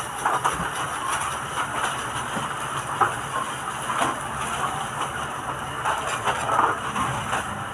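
A busy grocery store's steady din, with scattered small clatters of goods being handled at the checkout counter.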